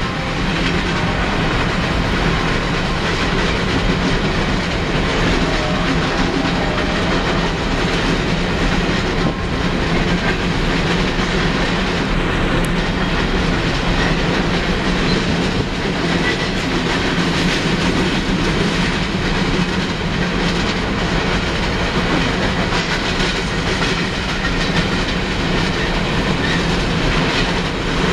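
A coal unit train's hopper cars rolling steadily past, the wheels rumbling and clicking over the rail joints.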